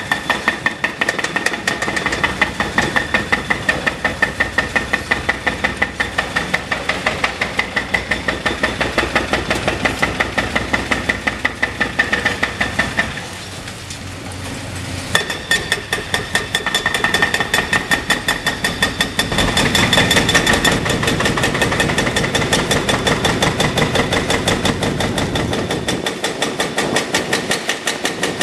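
Hydraulic breaker on a CAT excavator's boom hammering its chisel into a reinforced-concrete bridge deck: a rapid, ringing train of blows over the excavator's running engine. The hammering stops for about two seconds around the middle, then starts again.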